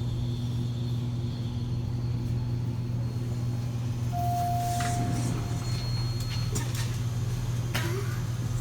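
A steady low mechanical hum, with a brief clear tone about four seconds in and a short high beep about a second and a half later.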